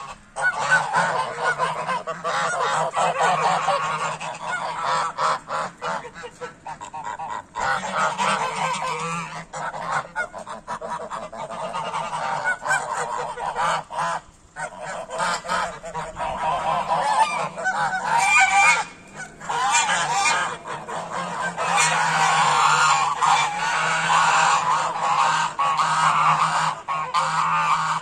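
A large flock of domestic geese honking, many calls overlapping almost without a break, with brief lulls about halfway and about two-thirds of the way through. The flock is clamouring as feeding time comes round.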